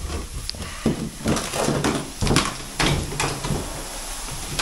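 A run of irregular knocks and clatters, about half a dozen over two or three seconds, from things being handled and moved on a dusty building-site floor.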